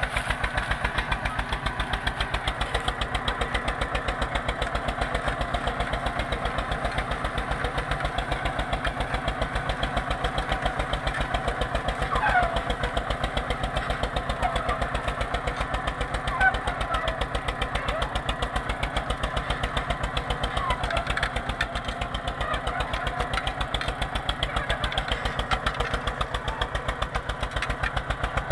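Eicher 242 tractor's two-cylinder diesel engine running steadily under load with a fast, even thudding beat, pulling a disc harrow through soil. A couple of short high squeaks come about halfway through.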